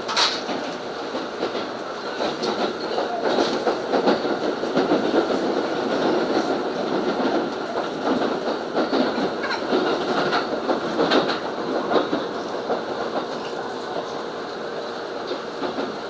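Keikyu Line train running, heard from inside the passenger car: a steady rumble of running noise with irregular sharp wheel clacks over the rail joints.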